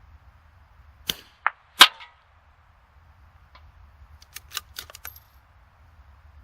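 A .22 LR rimfire bench rest rifle firing Lapua Super Long Range: a sharp crack a little under two seconds in, with two lighter sharp sounds just before it. Then come a few quick lighter clicks between about four and five seconds in, typical of the bolt being worked for the next shot.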